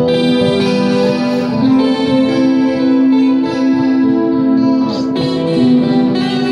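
Electric guitar played live, a melody of held notes that change every half second to a second.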